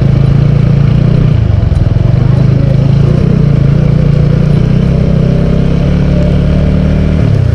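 Motorcycle engine running steadily while being ridden, heard loud from the rider's position. Its note shifts about a second in and dips again near the end.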